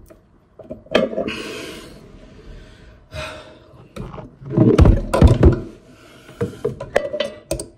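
Water pump pliers and grips clinking, knocking and scraping against a ceramic pedestal basin as the plastic back-nut of a basin waste is wrenched tight. The loudest part is a cluster of clunks about halfway through, with hard breathing between the knocks.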